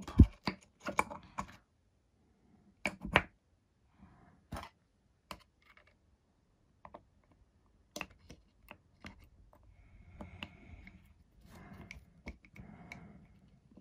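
Irregular clicks and taps of hard plastic and small metal parts as a 90 mm EDF fan unit's plastic shroud and impeller are handled and fitted onto the motor shaft. The sharpest click comes just after the start, and soft scraping and rubbing follow near the end.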